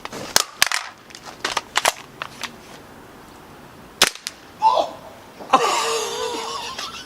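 WE HK416 gas blowback airsoft rifle firing: a cluster of sharp clicks and pops in the first two seconds, then a single loud crack about four seconds in. It is followed by a drawn-out cry from a person's voice.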